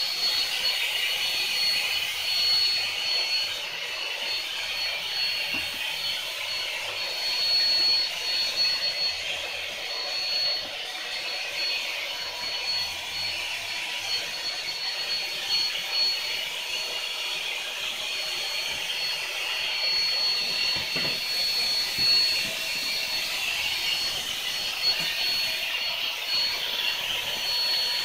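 Electric air blower running steadily with a high whine, blowing air into a large plastic inflatable blue whale as it fills.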